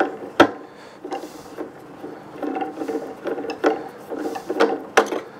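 Turned wooden screw being wound by hand into a wooden block, squeaking and creaking in short, irregular turns. A sharp knock comes about half a second in and another near the end.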